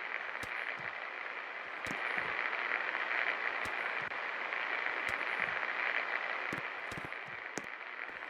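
52-inch Superstar Contractor Elite ceiling fan running: a steady airy hiss that grows slightly louder about two seconds in, with scattered faint clicks.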